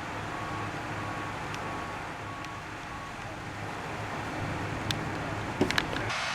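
Steady outdoor rumble of vehicles and wind, with a faint high beep repeating about every half second for the first few seconds and a few sharp clicks near the end.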